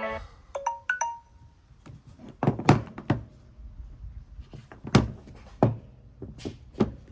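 A few short electronic notes, then an irregular series of sharp knocks and thunks, about eight in five seconds, with the loudest about two and a half and five seconds in: handling noise from the phone against a hard surface.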